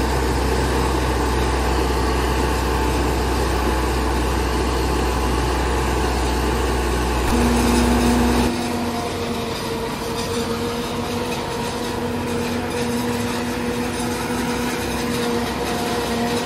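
New Holland tractor and its tractor-mounted forage harvester running steadily while chopping standing corn for silage and blowing it into a trailer: a continuous mechanical drone with a steady hum. The deep low rumble drops away about eight seconds in, leaving the higher machine hum.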